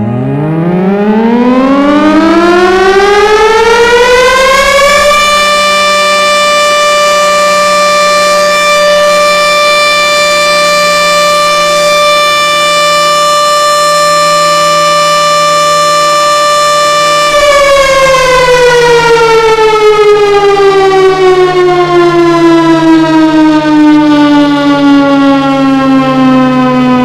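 Large motor-driven civil-defence-style siren. It winds up in pitch over about five seconds, holds a steady wail for about twelve seconds, then winds down slowly. This is the traditional signal for breaking the fast in Ramadan.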